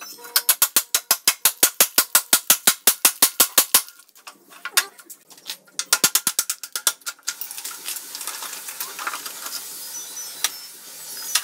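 Socket ratchet wrench clicking fast and evenly, about eight clicks a second, for nearly four seconds as a bolt at the swingarm pivot is spun out, then a shorter run about six seconds in. Fainter scraping and handling of metal parts follows.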